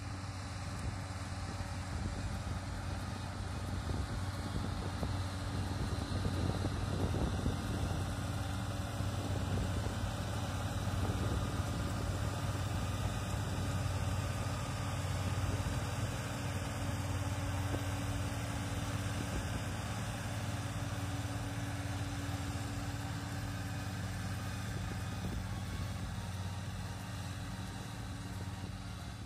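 Farm tractor's diesel engine running steadily at an even pitch.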